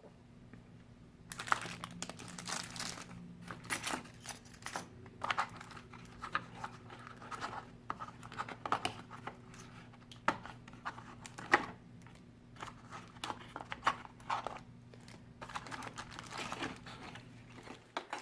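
Packaging being handled: plastic bags and cardboard rustling and crinkling in irregular bursts, with small sharp clicks and taps of parts being set down, over a faint steady low hum.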